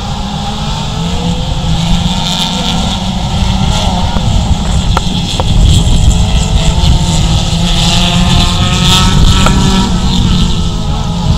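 Race car engines on a dirt track, running hard at high revs as several cars accelerate past, with pitch rising and falling through gear changes and corners; loudest about six and nine seconds in.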